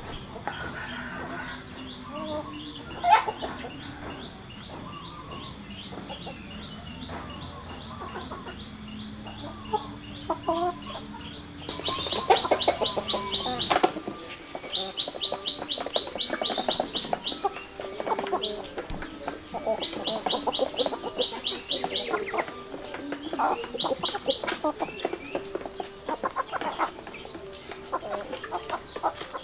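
Chickens clucking as they peck at food, with short calls coming irregularly. From about twelve seconds in, short runs of very rapid, high ticking come and go over the clucking.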